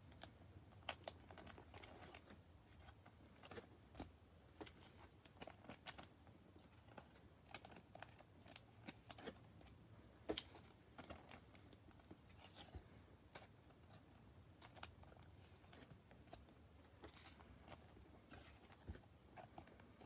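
Faint scattered clicks and taps of trading cards being handled and set down in a stack on a table mat, the sharpest about a second in and again about ten seconds in.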